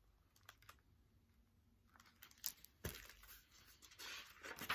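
Faint paper rustles and soft knocks of a picture book being handled and its page turned, coming as a few scattered short sounds, the clearest in the second half.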